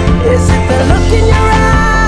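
Background music with a steady beat and held melody notes.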